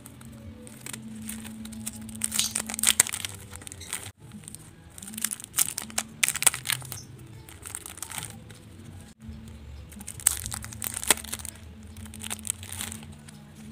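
Cellophane wrapping on a memo pad crinkling and rustling in the fingers as it is handled and unwrapped, in irregular bursts that break off abruptly twice.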